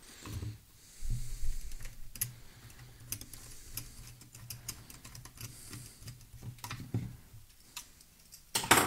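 Red-handled screwdriver driving a screw into the rear of an ISSC MK22 rifle's plastic stock: irregular small clicks and scrapes of metal tool on plastic, with a louder knock near the end.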